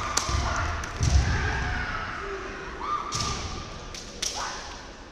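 Kendo sparring on a wooden gym floor: bamboo shinai clacking against each other and the armour in sharp clicks, heavy stamping thuds from the fighters' footwork, the loudest about a second in, and short sharp kiai shouts a few seconds in, echoing in a large hall.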